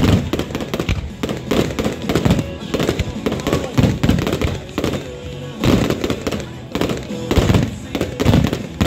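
Fireworks display: aerial shells bursting in rapid, dense succession, a continuous barrage of bangs and crackles, with music playing underneath.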